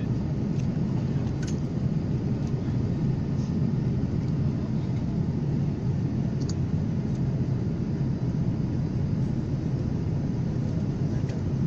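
Airliner cabin noise: a steady low rumble of engines and airflow, with a couple of faint ticks.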